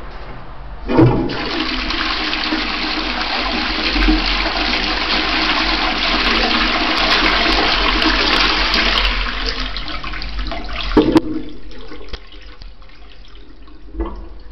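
Toilet flushing from a plastic cistern. A clunk about a second in starts about ten seconds of rushing water through the bowl, which cuts off with a knock. A quieter water sound goes on after it.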